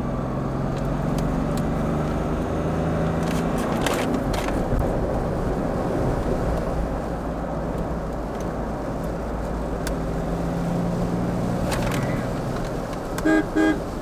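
Mahindra Bolero Neo's 1.5-litre diesel engine and road noise heard from inside the cabin at highway speed, the engine note rising a little as it pulls. Near the end a car horn gives two short beeps.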